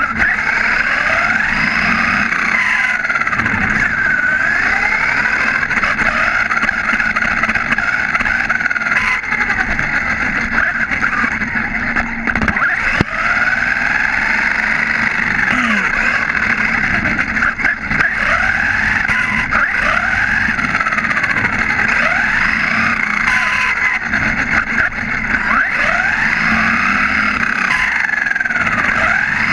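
HSP XSTR Pro electric RC buggy heard from a camera mounted on the car. Its motor and gear whine rises and falls in repeated sweeps as the car speeds up and slows, over a steady rush of tyres on asphalt.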